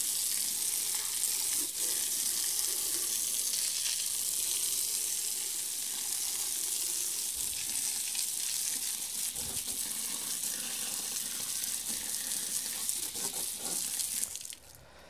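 Steady hiss of a jet of water from a power hose spraying onto a sanded alloy wheel, washing the sanding dust out of its crevices; it cuts off near the end.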